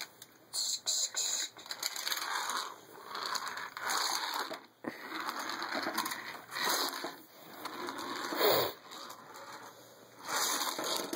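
Plastic toy trains and track being handled and pushed along, in a series of short rustling, scraping bursts.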